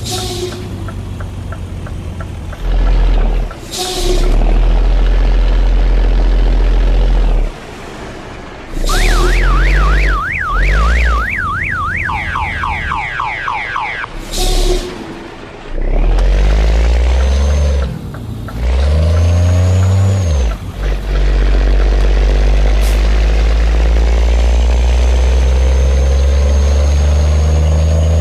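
Scania truck's diesel engine running loud under load, its low note cutting back and picking up again several times, with short bursts of hiss. About nine seconds in, a warbling siren-like tone sweeps up and down rapidly for about five seconds.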